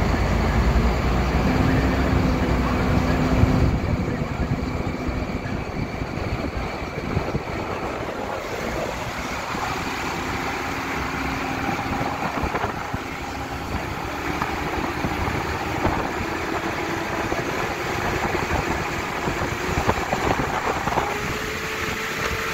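Steady highway road noise and engine hum heard from inside a moving vehicle, with traffic alongside. The low rumble is heavier for the first few seconds and then settles; no siren is heard.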